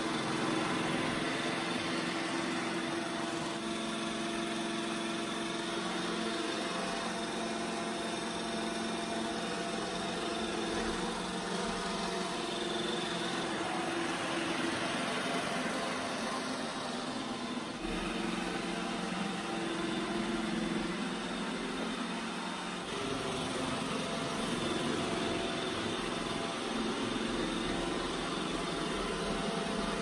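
iRobot Roomba i7+ robot vacuum running on a hard floor: a steady whir of its suction motor and brushes, shifting in tone a few times as it drives.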